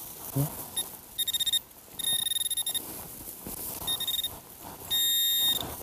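Handheld metal-detecting pinpointer probe beeping over a buried metal target: a burst of rapid short beeps about a second in, then longer high steady tones, the last held for most of a second near the end, signalling metal right at the probe tip.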